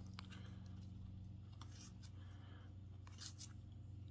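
Cardboard football trading cards sliding against each other as a stack is thumbed through by hand: a few soft, short swishes over a faint steady low hum.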